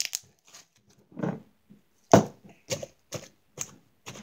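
Slime being squeezed and worked in the hands, giving short sharp pops and crackles, about two a second in the second half.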